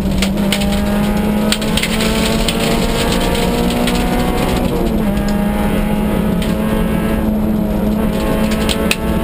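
Peugeot 106 Group N rally car's engine heard from inside the cockpit, run hard at high revs along the stage. Its pitch climbs and then drops at a gear change about five seconds in. Sharp ticks and rattles sound over it for a few seconds near the start.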